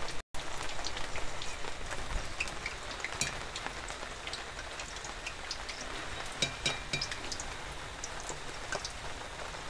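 Noodle-coated potato fingers deep-frying in hot oil: a steady sizzle with scattered small crackles and pops.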